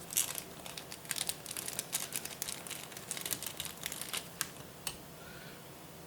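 Light, irregular clicks and taps from small computer parts being handled on a worktop, stopping about five seconds in.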